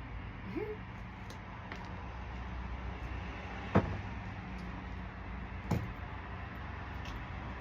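Two sharp knocks about two seconds apart, the first the louder, over a steady low hum.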